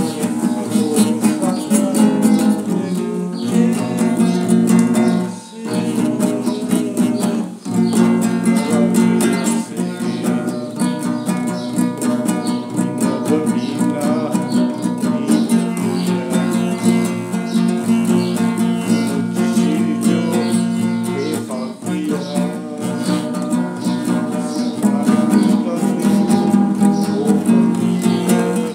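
A man singing over a strummed acoustic guitar.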